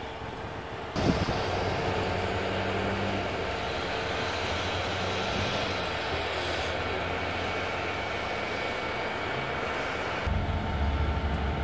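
Fire engine's engine running steadily, with a steady whine held under it. A rush of noise starts abruptly about a second in, and a deeper rumble comes in near the end.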